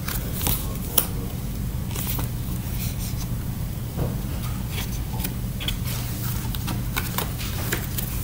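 Packaging and small items being handled close to the microphone: a string of short crackles and clicks, irregular throughout, over a steady low hum.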